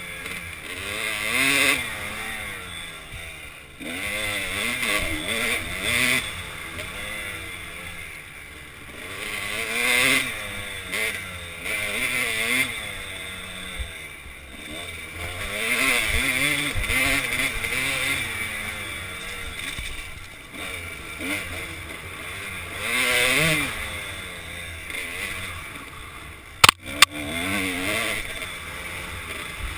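Kawasaki KDX200 two-stroke single-cylinder dirt bike engine under riding load, its revs repeatedly rising and falling every couple of seconds as the throttle is worked, heard from a helmet-mounted camera. A sharp double click sounds near the end.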